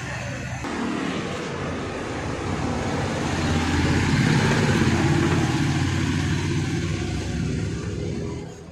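A motor vehicle's engine running close by, growing louder about four seconds in and then easing off.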